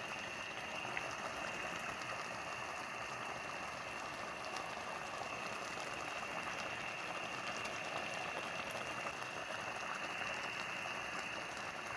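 Pot of black-eyed bean porridge simmering on the heat: a steady bubbling hiss with small scattered pops, over a faint steady high tone.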